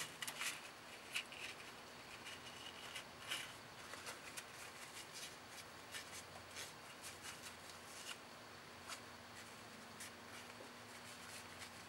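Faint paper-towel rustling and rubbing as a cloth wipes excess thread-locker off a rifle bolt carrier and gas key, with small scattered handling ticks.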